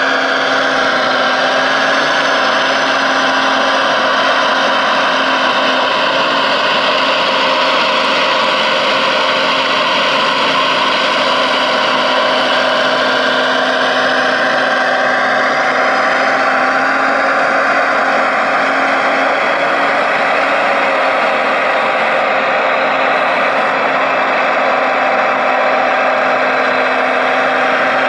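Electric hydraulic pump of a radio-controlled Liebherr excavator running steadily, a constant mechanical whine whose pitch shifts slightly now and then as the boom and log grapple are worked.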